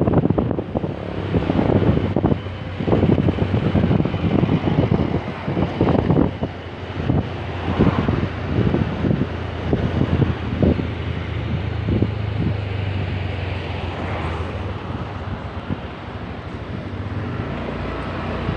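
Honda BeAT scooter's small single-cylinder engine running steadily while riding, heard as a low, even hum, with wind buffeting the microphone in irregular gusts.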